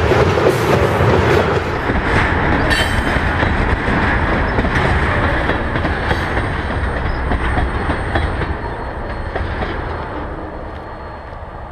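Freight train tank cars rolling past, their wheels rumbling and clicking on the rails. The sound fades away over the last few seconds as the end of the train moves off.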